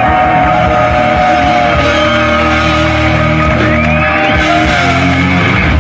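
Loud live hard rock band: distorted electric guitars and bass hold long ringing notes over pounding drums as the song comes to its end.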